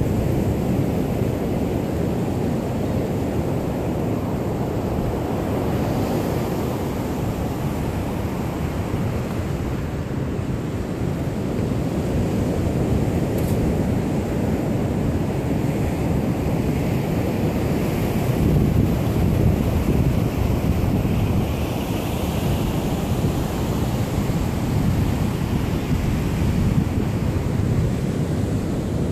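Wind buffeting the microphone in a steady low rumble, over the wash of ocean surf on the beach.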